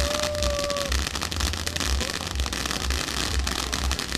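Ground firework fountain spraying sparks, giving a steady hiss thick with fine crackling. A short steady note lasts about a second near the start.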